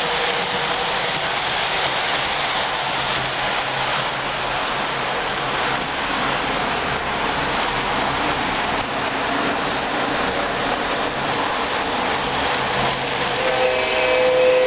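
O gauge model train running on three-rail track: a steady, even rolling noise of the wheels and motor. Near the end a held tone with several pitches comes in over it.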